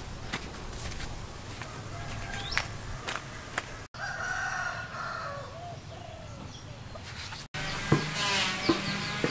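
A rooster crowing, one long drawn-out call about four seconds in, with a few sharp clicks before it and other bird calls near the end.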